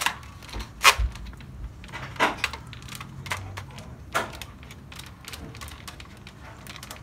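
Vertical foregrip being fitted onto the handguard rail of a spring airsoft rifle: a few sharp clicks and knocks spaced a second or so apart, the loudest about a second in.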